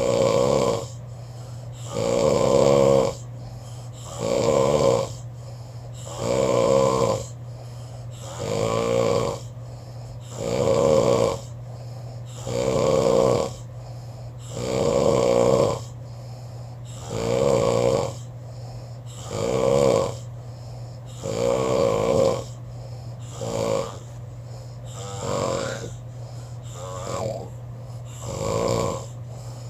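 A man snoring: regular rasping snores about every two seconds, each lasting about a second, over a steady low hum. A few snores near the end are shorter and quieter.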